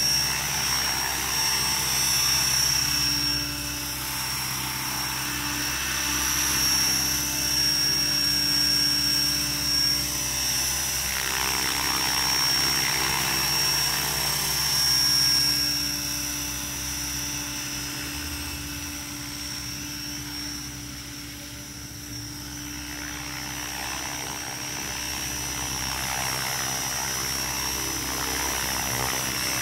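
Radio-controlled helicopter, an HK 550 converted to 600 size with 600 mm main blades and larger flybar paddles, hovering: steady rotor sound with a high-pitched whine, easing off a little about two-thirds of the way through before picking up again.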